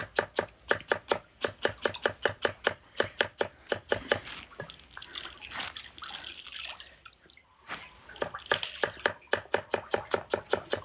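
Rapid, even knocking, about five sharp strokes a second, with a lull of a couple of seconds past the middle before it picks up again.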